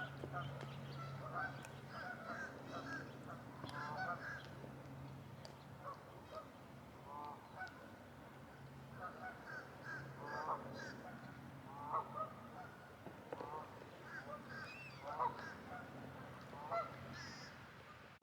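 A flock of geese honking: many short, overlapping calls repeating throughout, over a faint low steady hum.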